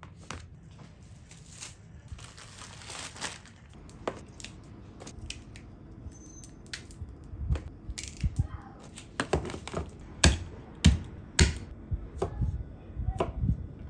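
Kitchen food-prep handling: crinkling and rustling, then irregular knocks and taps that come more often and louder after about seven seconds, the loudest a few sharp knocks about ten to eleven seconds in.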